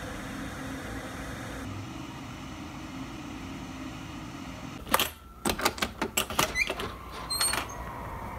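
Steady low background hum. About five seconds in, a sharp click is followed by a quick, uneven string of clicks and knocks lasting a couple of seconds, with a brief squeak near the end.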